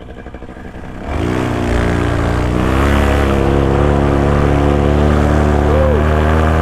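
Paramotor engine and propeller throttled up sharply about a second in, then held at high power with a steady drone.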